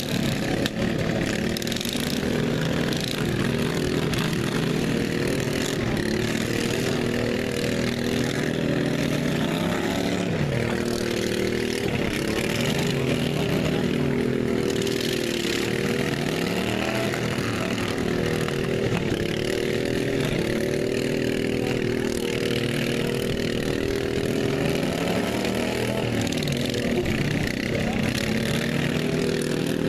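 Several racing lawn mower engines running together, their pitch dipping and rising every few seconds as the mowers throttle and pass.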